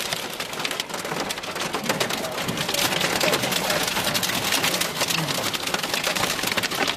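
Hail and rain pelting a moving vehicle, heard from inside the cabin: a dense, continuous patter of quick hits on the roof and windshield as it drives through a thunderstorm's hail shaft.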